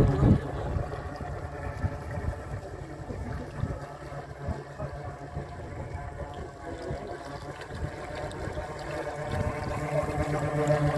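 Radio-controlled model wooden motorboat running on the water with a steady motor hum, growing louder near the end as the boat comes close. Irregular low rumble of wind on the microphone underneath.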